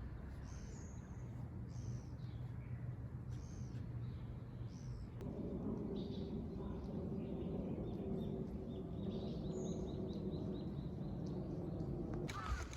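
Birds calling outdoors: short high calls about once a second, then a rapid trill later on, over a low steady background rumble that grows fuller about halfway through.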